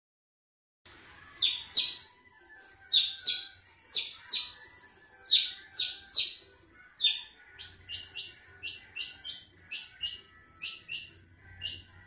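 Caged long-tailed shrike (cendet) giving a long series of loud, sharp, short call notes, starting about a second in: at first in quick pairs, then faster and more evenly spaced from about halfway. The calling is that of a bird in breeding mood.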